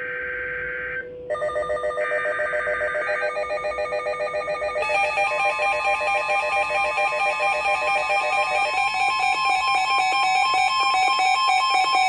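NOAA Weather Radio SAME header: a short warbling digital data burst. About a second later a weather radio's pulsing electronic alert alarm starts and repeats several times a second, with another data burst under it. The alarm gets louder about five seconds in, signalling an incoming severe thunderstorm warning.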